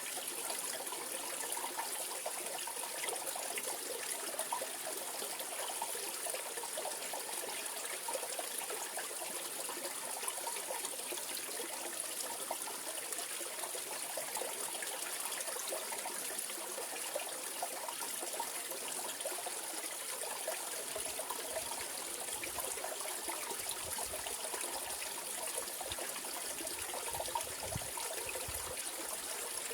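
Mountain stream flowing over rocks in a steady, even rush of babbling and splashing water.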